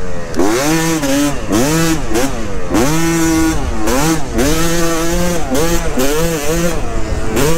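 Yamaha YZ250 two-stroke dirt bike engine under way, revving up and dropping back over and over as the throttle is rolled on and off, roughly once or twice a second.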